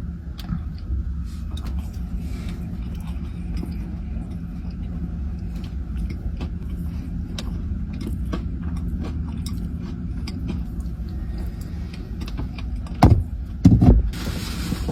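Chewing and small mouth clicks as a cookie is eaten, over a steady low rumble like a car idling, heard from inside the cabin. There are two short louder sounds near the end.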